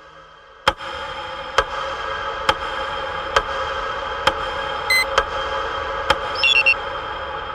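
Ticking a little under once a second over a steady, layered ambient drone, with a brief high beep around the middle and a short chirp near the end.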